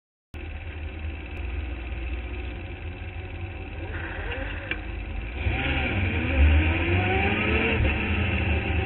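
Open-wheel formula race car's engine heard from its own cockpit, running steadily at low speed, then growing louder about halfway through with its pitch climbing as the car accelerates.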